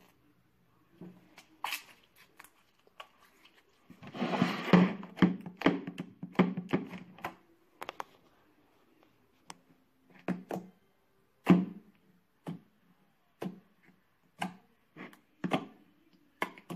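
Pink slime being squeezed and worked in the hands, giving a burst of wet crackling and popping clicks lasting about three seconds. Then scattered clicks and knocks of a plastic storage box and its clear snap-on lid being handled on a table.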